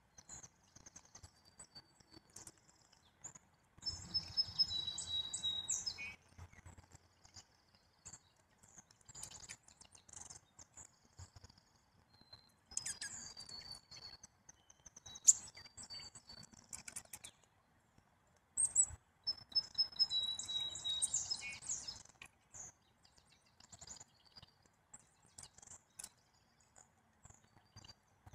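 A song sparrow sings the same short song twice, about fifteen seconds apart: a few clear high notes stepping down into a rapid trill. Fainter high notes come between the two songs, with scattered soft ticks and one sharp tap near the middle.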